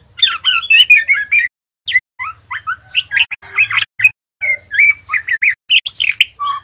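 Juvenile male white-rumped shama practising its song: fast, varied chattering and twittering notes in three bursts separated by short pauses. This is the rambling subsong of a young bird still learning to sing.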